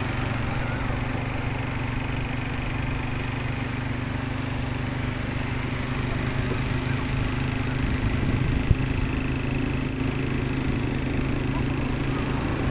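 Quad bike (ATV) engine running steadily while riding along on sand, with one brief knock about two-thirds of the way through.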